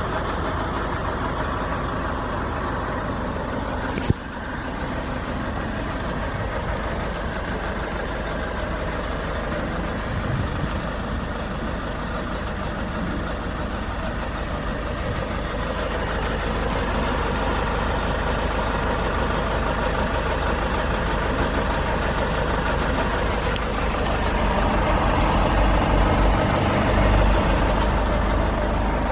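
Nissan NV350 Caravan's 2.5-litre diesel engine running steadily, with one sharp click about four seconds in and a little louder in the second half.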